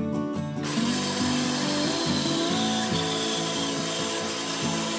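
Band saw cutting a curve through a thick wooden block, a steady sawing noise that starts about half a second in. Acoustic guitar background music plays underneath.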